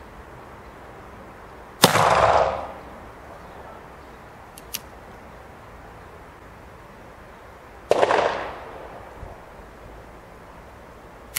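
Two shots from an original 1860 Colt Army .44 cap-and-ball revolver loaded with combustible paper cartridges, about six seconds apart, each a sharp crack with a short echo dying away. Two faint clicks come between the shots.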